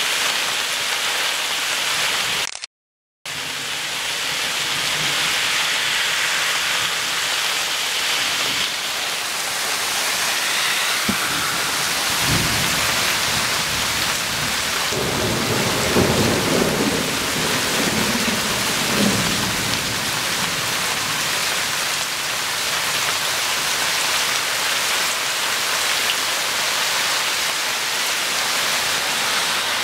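Heavy rain falling steadily, with a low rumble of thunder swelling up and fading in the middle. The sound cuts out completely for about half a second near the start.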